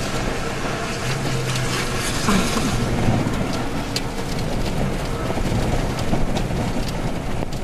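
Wind buffeting the microphone with steady rain noise during a tornado-producing storm, with a few scattered sharp ticks.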